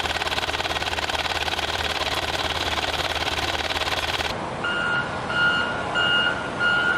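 A small engine or motor running with a fast, even chatter. About four seconds in, after a cut, a vehicle's reversing alarm beeps at one steady pitch, about three beeps every two seconds.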